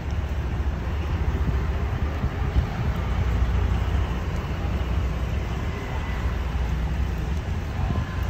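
Steady low rumble of heavy-vehicle engine and road noise.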